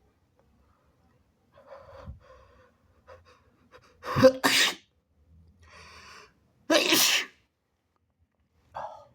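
A man sneezing wetly twice, each sneeze preceded by hitching in-breaths. The first, about four seconds in, comes in two quick parts; the second comes about seven seconds in.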